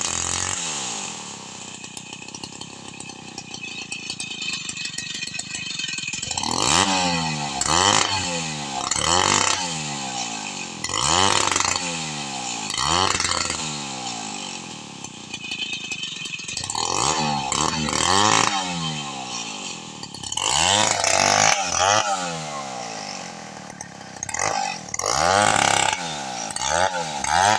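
Two-stroke chainsaw cutting falcata wood. It runs steadily at first, then from about six seconds in it revs up and drops back over and over, roughly every one and a half seconds.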